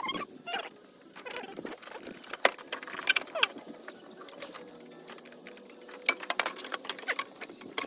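Sped-up time-lapse audio of hand tools working on a car's engine bay: rapid clinks and clicks of metal tools and parts, with short squeaky chirps.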